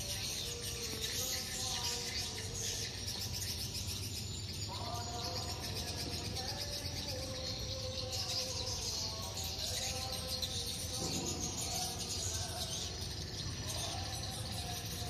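Swiftlets chirping: a dense, continuous high-pitched twittering, with a few held lower tones coming in about a third of the way through and again near the end.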